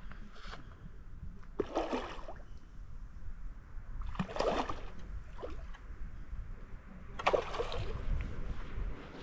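Water splashing in three short bursts: a hooked carp thrashing at the surface as it fights the line.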